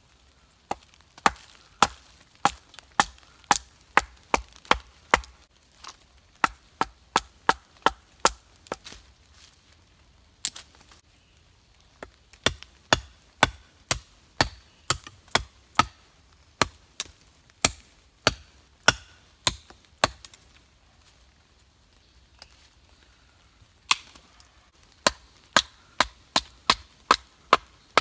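Batoning and chopping a stick with an ESEE Junglas machete: sharp wooden knocks as the baton and blade strike the wood, about two a second, in three runs with short pauses between.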